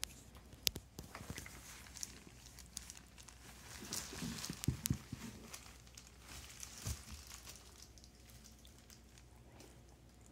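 Soft crinkling and rustling with scattered small clicks and taps, busiest about four to five seconds in.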